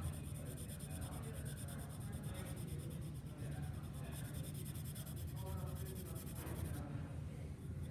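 Wooden pencil scratching on paper in quick, regular back-and-forth strokes over a low steady hum. The strokes stop near the end.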